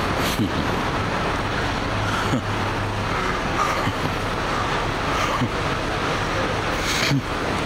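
Steady road traffic noise, a continuous rush of passing and idling vehicles, with a low engine hum for a moment in the middle and a few faint knocks.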